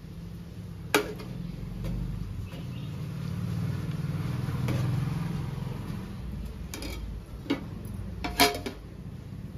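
Dishes clinking a few times, with the sharpest knocks about a second in and near the end. Under them is a low rumble that swells in the middle and fades.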